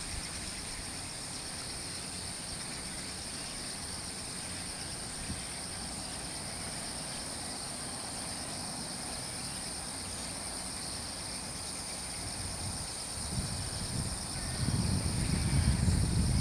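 Steady high-pitched insect chorus at dawn. A low rumble builds over the last few seconds and becomes the loudest sound.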